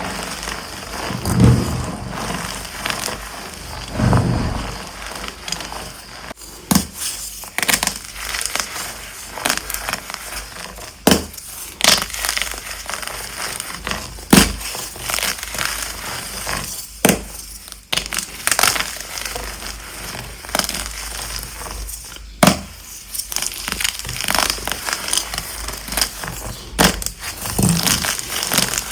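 Dyed gym chalk blocks being crushed and crumbled, giving a run of dry crunches and crackles at an uneven pace, with a few soft low thuds near the start.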